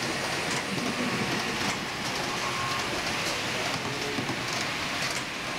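H0m-scale model freight train rolling along its track: a steady rushing noise from the wheels on the rails, with scattered faint clicks.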